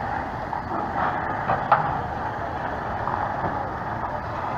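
Heavy truck's engine running steadily as it moves across a ship's deck, with one sharp knock a little under two seconds in.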